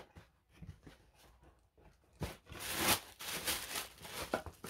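Packaging being handled and torn open: a run of short rustling, tearing bursts, loudest a little past the middle.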